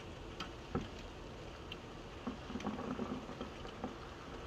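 Distant aerial fireworks: scattered faint pops and crackles over a steady background hiss, coming more thickly in the second half.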